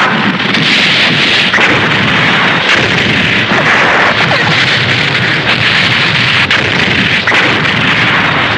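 A Showa-era tokusatsu sound effect: a loud, steady rushing noise with scattered crackles, running on without a break.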